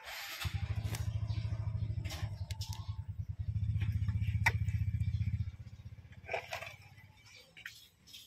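A small engine running with a low, rapidly pulsing drone that stops about five and a half seconds in, with a few sharp clicks and light scrapes over it.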